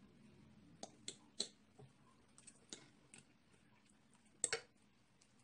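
Quiet eating sounds: scattered clicks of a fork against a plate as food is picked up and eaten, with one louder click about four and a half seconds in.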